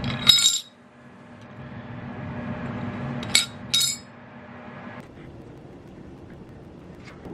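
Three sharp clinks of hard objects striking, each ringing briefly: one just after the start and two close together about three and a half seconds in. A steady low hum runs under them and stops about five seconds in.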